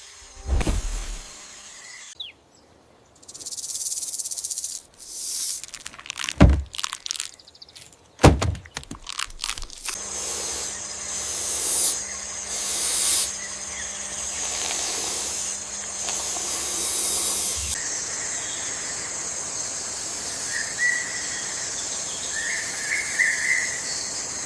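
Edited sound effects: hissing swishes and three sharp, deep thumps in the first several seconds, then a steady hiss with a low hum, and a few faint chirps near the end.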